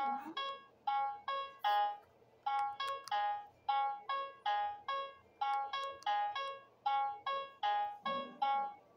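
Memory Flash handheld electronic memory game (a Simon-style toy) beeping: a quick run of short electronic tones in a few different pitches, about two to three a second, each sounding as a coloured button lights up during play. A lower, buzzier tone comes in near the end.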